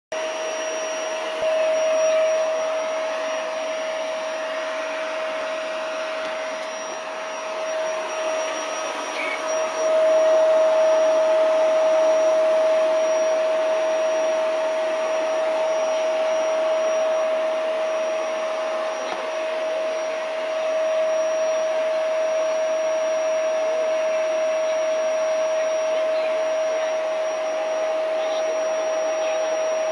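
An electric motor running steadily, a whirring hiss with a constant whine, getting louder about ten seconds in.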